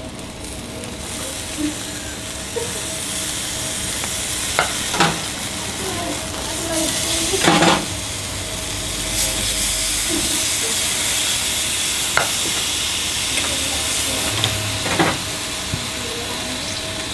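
Glazed pork ribs sizzling on a hot grill grate over open flame, a steady hiss broken by a few sharp pops and crackles as the glaze and fat drip and flare.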